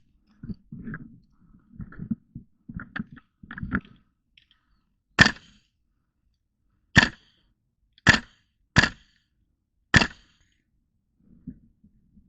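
Airsoft gun fired five times in single shots, sharp cracks spaced one to two seconds apart. Before the shots, a few seconds of low shuffling and light knocks from movement.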